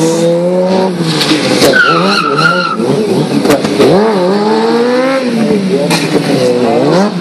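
Sport motorcycle engine revving up and down again and again under stunt riding, with a tyre squealing on the asphalt about two seconds in and a few sharp cracks.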